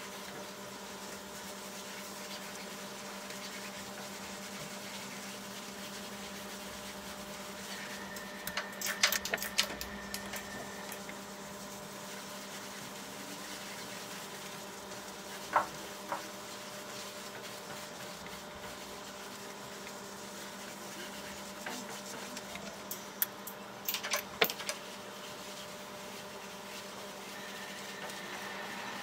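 A steady electrical hum with a few fixed tones over it, broken by a burst of sharp clicks and taps about a third of the way in, two single ticks about halfway, and another burst of clicks near the end.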